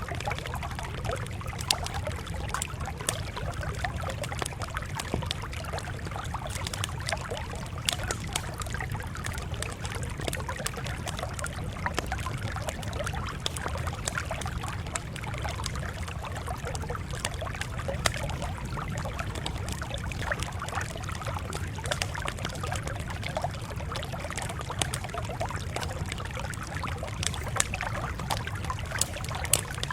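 Campfire crackling, with many irregular sharp pops and snaps over a steady low rumble.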